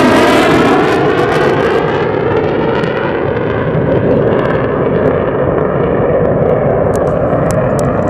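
Jet noise from a departing USAF F-15 fighter's twin Pratt & Whitney F100 turbofans as the jet climbs away: a loud, steady rush whose pitch sweeps slowly downward while its higher part fades as the aircraft recedes. A few faint clicks come near the end.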